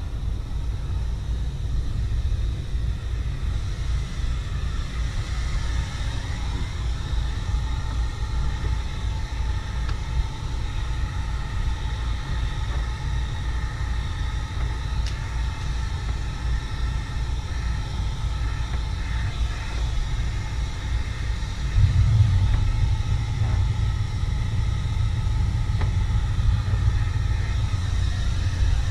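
Electric heat gun blowing, a steady fan whine with several held tones, over a low rumble that gets louder about two-thirds of the way through.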